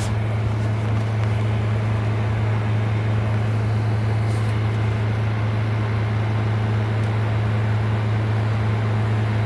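3,600-watt portable generator running steadily while powering a 6,000 BTU window air conditioner, a constant low hum.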